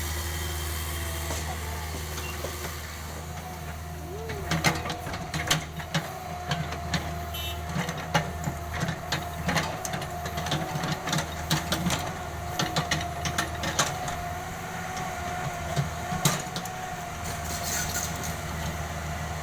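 Excavator's diesel engine running steadily under load, with a steady whine joining about four seconds in and, from then on, irregular clanks and knocks as the machine works.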